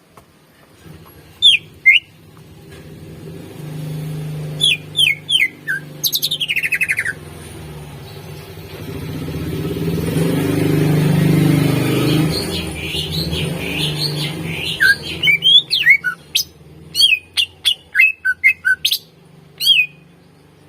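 Greater green leafbird (cucak ijo) singing: sharp falling whistled notes, a long descending trill about six seconds in, a run of warbling notes, then a quick string of loud whistles near the end. A low rumble swells and fades in the middle.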